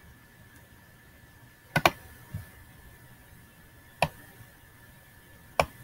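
A few sharp computer mouse clicks: a quick double click about two seconds in, a softer click just after, then single clicks near four and five and a half seconds in, over a faint steady high whine.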